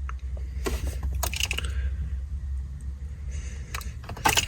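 Handling sounds: scattered light clicks and rattles of a set of car keys and a handheld scan tool being handled, with the keys jangling louder near the end, over a low steady hum.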